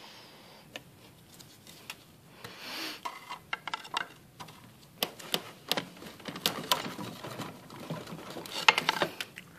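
Scattered sharp clicks and light knocks of tools and parts being worked in a car's engine bay, with a quick cluster of them shortly before the end.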